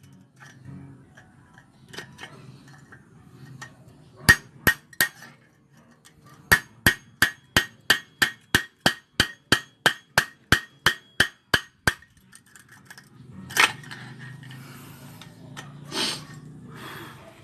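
A hammer striking metal, with ringing clinks: three blows about four seconds in, then a steady run of about seventeen blows at roughly three a second, then a louder knock or two with some clattering near the end. This is typical of driving a nail or screwdriver to break out the catalytic converter inside a motorcycle exhaust.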